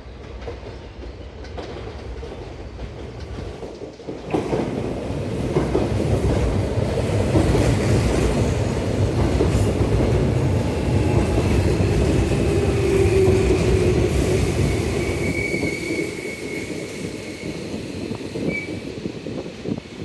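Electric commuter train running on the tracks, its rumble and wheel clatter swelling about four seconds in and easing off near the end, with a thin high squeal from the wheels in the second half.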